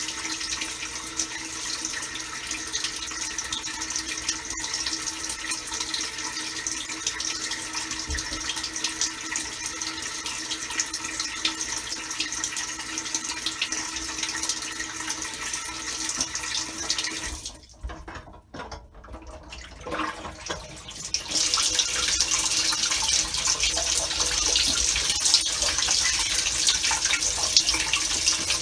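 Samsung Waterwall dishwasher running a wash cycle, with water spraying inside the tub over a steady pump hum. The sound drops away for a few seconds about 17 seconds in, then comes back louder.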